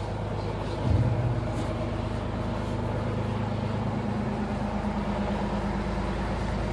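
A motor running steadily with an even low hum, with a brief louder sound about a second in.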